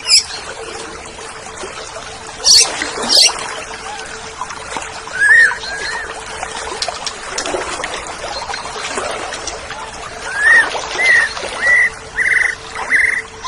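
Oriental magpie-robin (kacer) singing. A couple of sharp high chirps come about two and a half and three seconds in, then short whistled notes, and near the end a run of five or six quick repeated whistled notes. A steady faint hum and hiss lie beneath.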